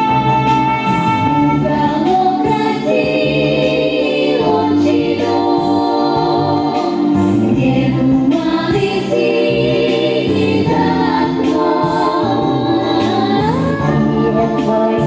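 A song: singing voices carrying a melody over instrumental accompaniment.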